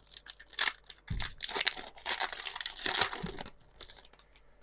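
Foil wrapper of a Pokémon card booster pack crinkling and tearing as it is ripped open and handled, dying away after about three and a half seconds.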